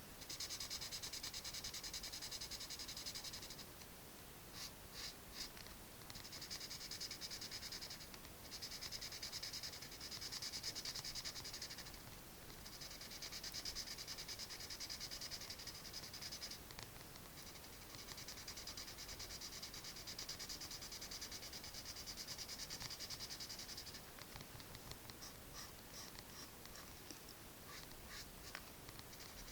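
Pencil scratching rapidly back and forth on paper in shading strokes, in bursts of a few seconds with short pauses between them.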